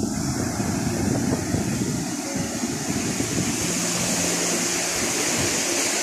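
Ocean surf breaking and washing up a sandy beach: a steady rush of waves. Soft, steady music tones come in a little past halfway.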